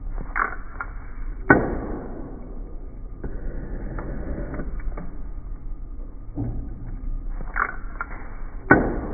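Metal shaper cutting steel with a carbide tool: two strokes about seven seconds apart, each a sharp knock as the tool enters the cut followed by a fading scrape, over the steady hum of the machine's drive.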